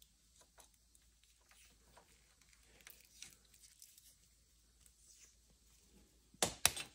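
Electrical tape being pulled off the roll while wrapping a wire to a guide wire: a few faint handling clicks, then two short crackling rips of tape near the end.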